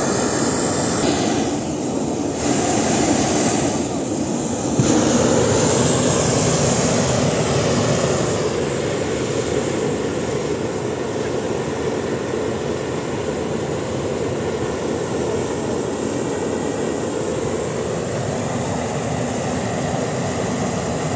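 Hot air balloon's propane burner firing in a long continuous blast, a steady loud rushing hiss, a little louder from about five seconds in.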